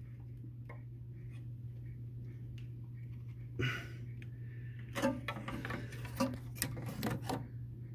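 Hands handling the refrigerator's defrost drain hose and the parts around it, making small clicks and knocks: one about halfway through, then a quick cluster near the end, over a steady low hum.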